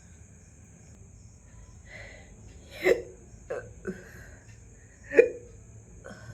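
A person hiccuping several times, each a short sudden catch in the throat. The loudest come about three and five seconds in, with fainter ones between and near the end.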